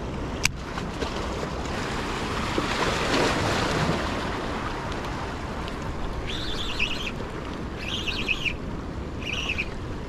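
Steady wind and water noise, with one sharp click from the baitcasting reel about half a second in. From about six seconds on, a bird calls three times in short, high, wavering chirps.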